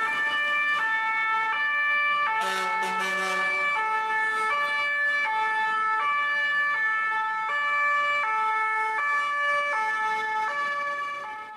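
Two-tone emergency vehicle siren on a fire engine, alternating steadily between a high and a low note about every three-quarters of a second, fading out near the end.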